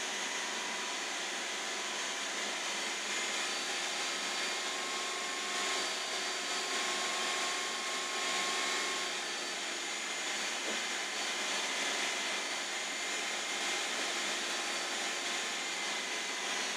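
Countertop food processor's motor running steadily, chopping and blending a thick mix of rolled oats, seeds, honey and peanut butter: a continuous whirring whine that swells a little in loudness now and then.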